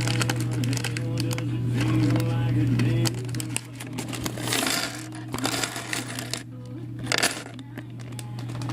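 Loose plastic Lego bricks clicking and clattering as they are handled and sorted by hand, with a couple of denser clatters about halfway through and near the end. A steady low hum runs underneath.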